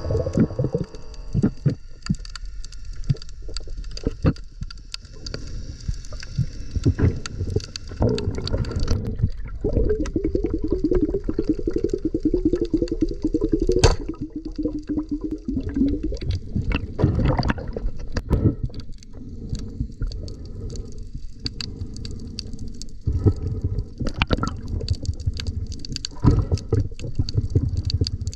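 Water gurgling and sloshing, with irregular knocks and a low rumble. For several seconds in the middle there is a fast, buzzing pulse.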